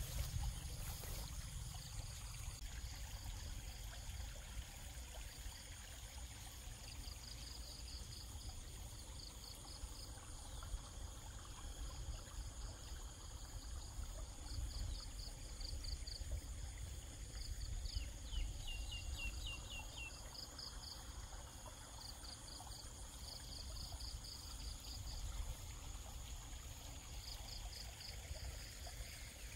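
Faint field ambience: insects chirping in short, evenly pulsed trills that come and go, over a steady high insect whine and a low rumble. A brief run of quick chirps comes a little past halfway.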